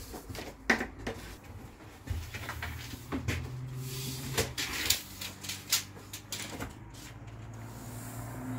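Scattered knocks and clicks of thin wooden strips and a tape measure being handled on a workbench, with a low steady hum underneath from about two seconds in.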